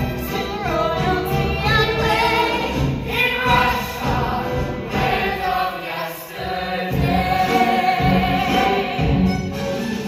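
Large mixed chorus of a musical theatre cast singing a show tune together over instrumental accompaniment.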